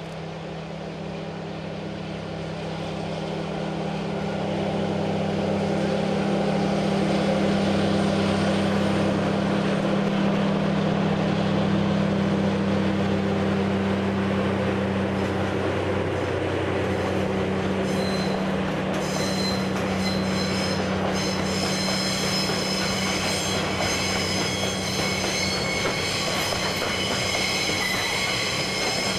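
DD51 diesel-hydraulic locomotive hauling a container freight train past, its engine running with a steady low drone that grows louder over the first several seconds, followed by the container wagons rolling by. From about two-thirds of the way through, the wagon wheels squeal on the curve with several high ringing tones.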